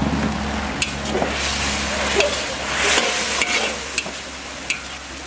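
Sweet-and-sour sauce bubbling and sizzling in a steel wok as cornstarch thickens it. A metal ladle stirs it, clinking and scraping against the wok several times.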